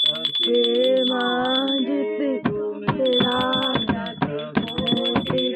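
Devotional aarti singing with a hand bell rung rapidly throughout. The bell stops for about a second partway through, then resumes.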